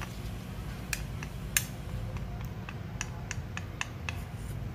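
Wooden chopsticks clicking and tapping against a small ceramic sauce bowl as oyster sauce is scraped out onto meat: a series of light clicks at irregular intervals, the sharpest about a second and a half in, over a low steady hum.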